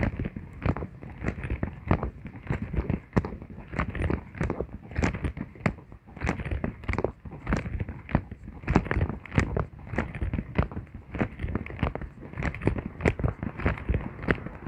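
Footsteps going on steadily, about two to three knocking steps a second, irregular and uneven.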